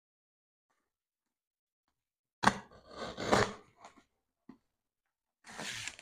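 Packing tape on a cardboard parcel being cut and torn with scissors. About two and a half seconds in there is a sharp crack, then about a second and a half of scraping and tearing, a small click, and a short ripping rustle near the end.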